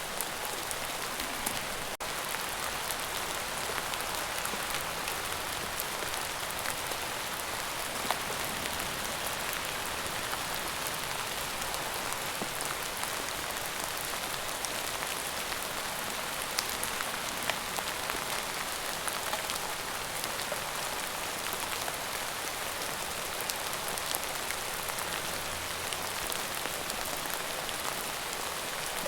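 Steady rain falling: an even hiss with scattered louder drop ticks, and a momentary dropout about two seconds in.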